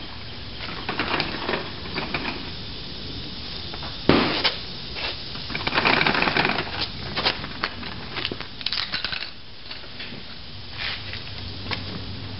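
Irregular metal clanks, knocks and scrapes from handling tools and the drum-braked rear axle as it is worked out from under the truck on a dolly, with one sharp knock about four seconds in and a stretch of scraping around six seconds.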